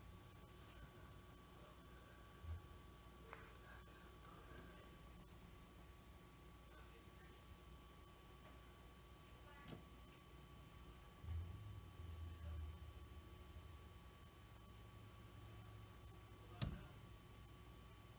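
A cricket chirping steadily, short high chirps about three a second. A single sharp knock about two-thirds of the way in.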